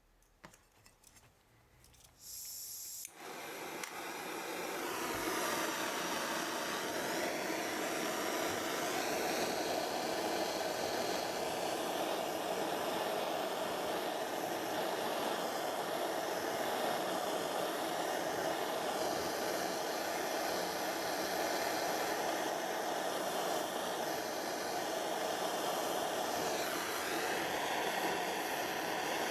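Gas blow lamp flame starting suddenly about three seconds in, then burning with a steady hiss as it heats a joint for silver soldering.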